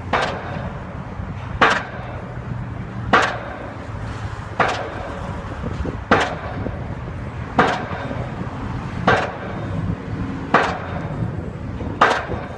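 Heavy hammering knocks repeating at an even pace, about one every one and a half seconds, nine in all, each ringing briefly, over a steady low machine hum.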